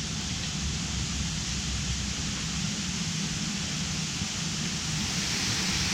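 Steady rushing of river water: an even hiss with a low rumble underneath.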